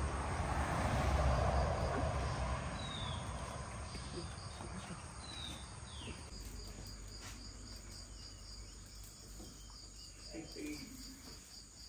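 Insects chirping in an even, fast high pulse, with a few short falling bird calls. A broad hiss is loudest at the start and fades over the first few seconds.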